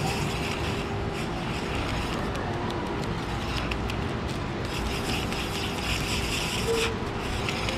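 Adhesive label matrix being peeled by hand off a roll of die-cut stickers and wound onto a rewinder core: a crackly paper rustle in two stretches, over a steady background rumble with a low hum.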